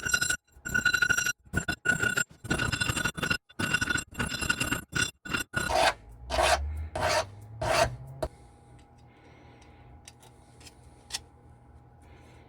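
Hand file rasping back and forth along 16 gauge square copper wire, rounding off its corners to make round hinge wire: a quick run of even strokes with a slight metallic ring, then three slower strokes, stopping about eight seconds in.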